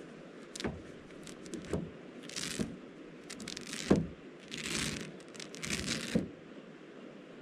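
Rustling and crinkling in several bursts, as of material being handled, with a handful of sharp knocks; the loudest knock comes about four seconds in.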